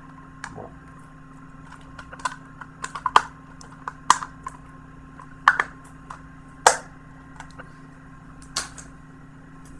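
Plastic Blu-ray cases and discs being handled: irregular sharp clicks and taps, loudest around the middle, over a faint steady hum.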